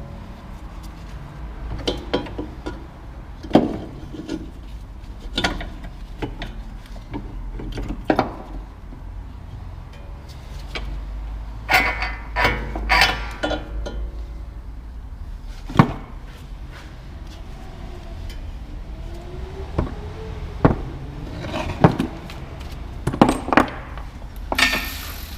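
Metal hand tools and parts clinking and knocking at irregular intervals, over a steady low hum.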